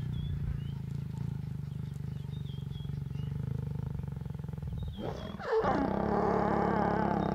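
Mating lions growling low and steadily, then a sudden, louder snarling growl breaks out about five and a half seconds in and is held.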